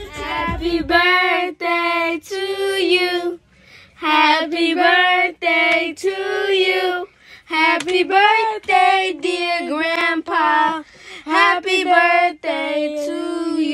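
A young girl singing a song in short phrases, holding notes, with brief pauses between lines and no instruments.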